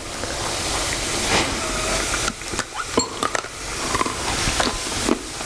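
Homemade corn-flour nachos deep-frying in hot peanut oil: a steady sizzle with scattered pops and crackles.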